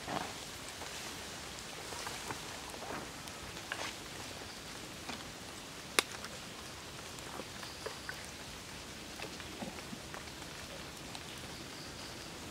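Outdoor forest ambience: a steady hiss with scattered soft crackles and ticks from the foliage, and one sharp click about halfway through.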